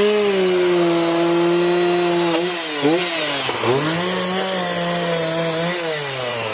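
Gasoline chainsaw revved to full throttle and held steady, dropping back briefly around the middle, then revved up and held again before falling back toward idle near the end.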